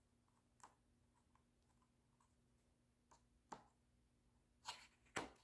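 Near silence with a faint room hum and a few soft, scattered clicks and rustles from a picture book's paper pages being handled, most of them near the end.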